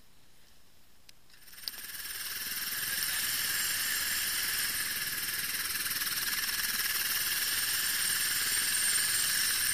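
Helicopter turbine running with a steady high whine. It comes in about a second in and builds up over the next second or two.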